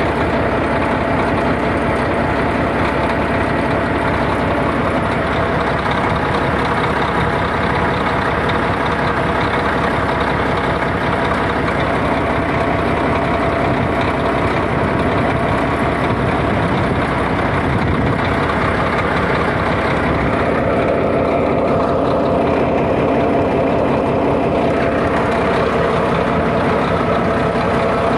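Bulldozer's freshly overhauled diesel engine running steadily, with a continuous heavy chug.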